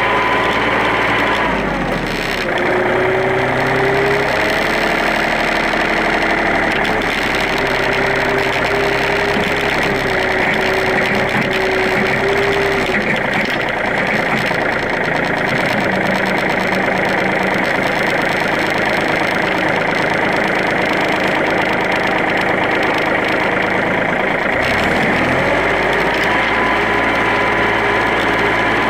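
John Deere 2720 compact tractor's three-cylinder diesel engine running while working its front-end loader. Engine speed drops about two seconds in, holds lower through the middle, then rises again near the end.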